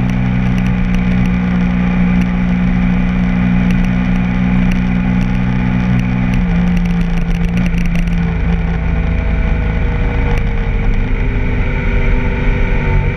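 BMW F800GS parallel-twin engine running steadily as the bike rides along a dirt road, with tyre and gravel noise. About halfway through, the steady engine note drops away and changes pitch.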